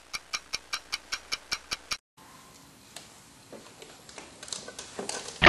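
Fast, even clock-like ticking, about five ticks a second, that stops abruptly about two seconds in. Then faint room sound with a few soft footstep knocks on a wooden floor as someone steps onto a bathroom scale.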